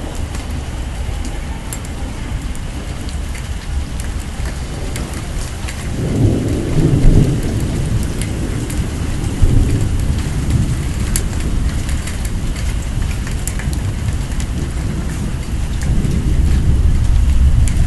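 Heavy rain pattering steadily during a thunderstorm, with deep rumbles of thunder swelling about six seconds in and again near the end.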